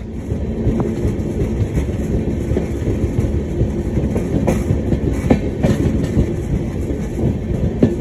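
Indian passenger train running: a steady rumble of wheels on rails, with a few irregular clacks as the wheels pass over rail joints.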